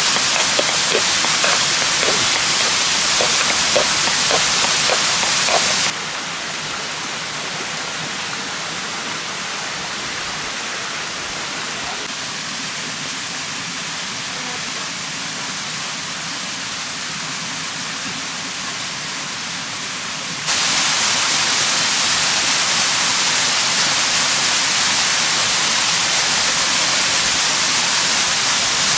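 Steady rush of a stream's running water. It drops to a lower level about six seconds in and comes back up about twenty seconds in, with a few light crackles in the first seconds.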